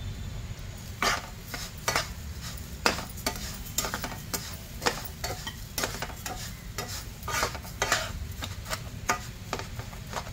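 Flat steel spatula stirring and scraping roasted semolina and sugar around a nonstick pan, in irregular strokes about one or two a second, over a steady low hum.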